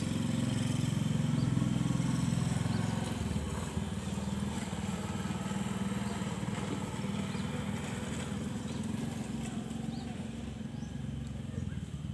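An engine running steadily in the background, a low droning hum that is a little louder for the first three seconds and then holds even.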